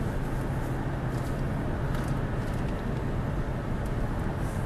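Steady low rumble and hiss of a moving vehicle, with a faint tick now and then.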